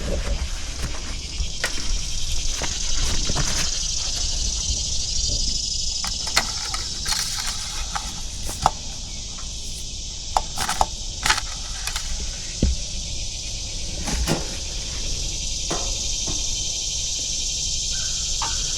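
A steady high-pitched insect chorus of crickets or cicadas, with a scattered series of sharp clicks and knocks over it, about a dozen, the loudest near 6, 9, 11 and 14 seconds in.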